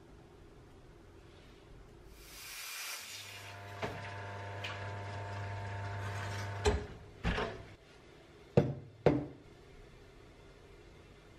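La Marzocco espresso machine pulling a shot: a hiss as the brew starts, then the pump's steady hum for about four seconds until it cuts off. Then four sharp knocks as the glass and steel milk jug are handled on the counter.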